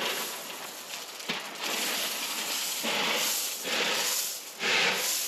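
Track ballast (stone chippings) pouring out of a cut-down plastic container onto the trackside, a continuous hiss of running gravel that comes in surges, starting about one and a half seconds in and loudest near the end.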